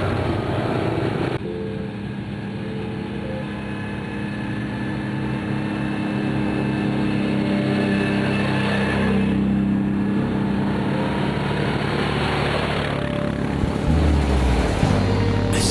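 Engines of a line of ATVs (quad bikes) running past, a steady drone whose pitch drifts slowly up and down.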